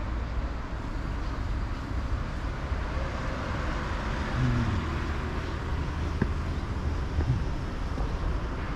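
Road traffic: cars driving along the road, a steady noise with a low rumble and a few faint ticks.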